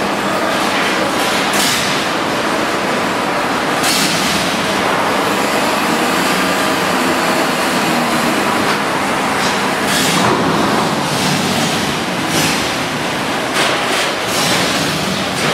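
Loud steady rumble on a ferry's enclosed steel car deck as a coach bus drives off, its diesel engine running under the ship's own machinery noise. Several sharp clanks cut through it, more of them near the end.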